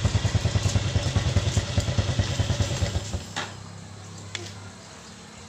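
Small motorcycle engine idling with an even throb, then shut off about three seconds in. Afterwards a few light metallic clicks.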